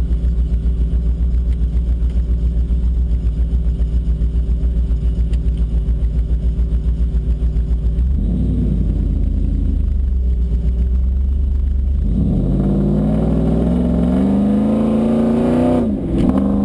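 Car engine idling with a steady, pulsing rumble, a short rise in revs about eight seconds in, then revving up as the car accelerates from about twelve seconds, with a brief break near the end like a gear change.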